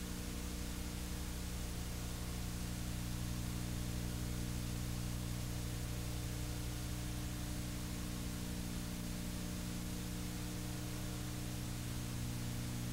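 Steady hiss with a low electrical hum, the background noise of an old videotape recording, with no distinct sounds.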